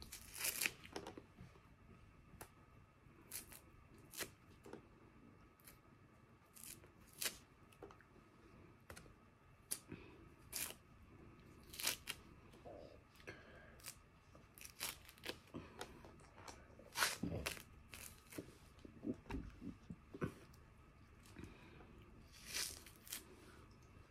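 Thick orange peel torn away by hand: a series of short, irregular rips and snaps as the rind comes off in pieces.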